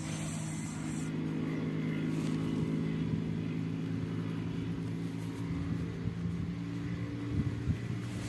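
A motor or engine running steadily with a low, even hum.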